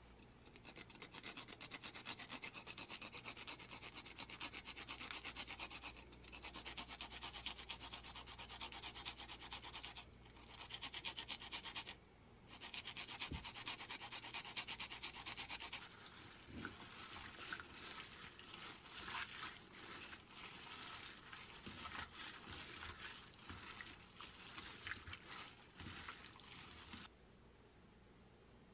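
Garlic being grated by hand on a plastic grater: a fast, scratchy rasping in several bouts with short breaks. About halfway through it changes to a lower, wetter rubbing with soft knocks as the raw chicken is worked through the marinade. It stops a little before the end.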